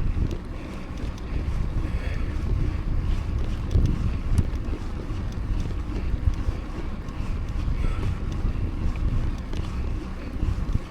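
Wind rushing and buffeting over the microphone of a mountain bike rider moving along a road, a steady low rumbling noise that swells and eases.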